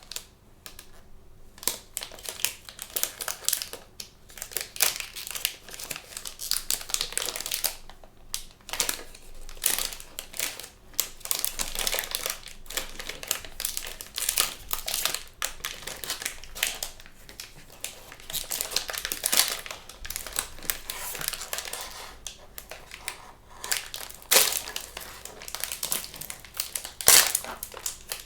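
Plastic blind-bag packaging crinkling and crackling as it is handled and opened, with scattered sharp clicks and taps.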